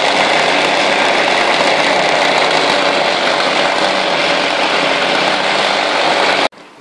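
Motorised rug-beating machine running with a loud, steady mechanical noise as it is pushed along a rug. The noise cuts off abruptly near the end.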